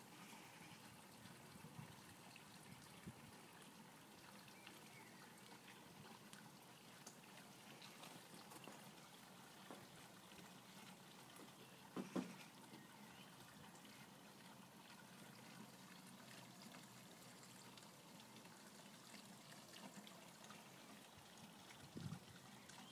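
Faint, steady trickling of water in a garden fish pond, with a short louder sound about halfway through and another near the end.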